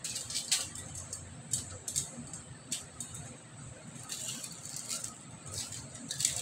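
Metal kitchen tongs turning chunks of potato and carrot on a foil-lined tray: scattered light clicks of the tongs and crinkles of aluminium foil.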